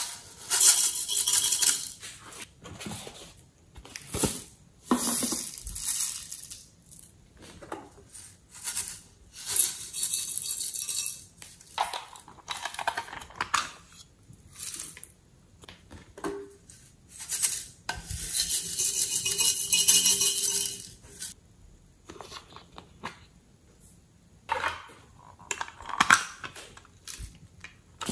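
Glitter and sequins shaken out of plastic tubes and a small plastic case onto a tray. They fall in several separate bursts, each a second or three long, with quiet gaps between.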